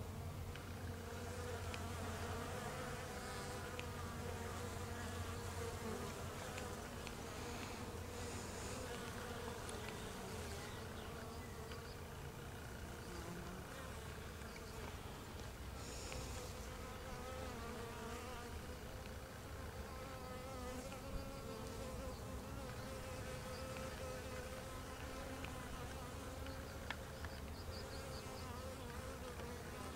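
Honey bees buzzing at a hive entrance: a steady hum of many wingbeats, with pitches wavering as individual bees fly close.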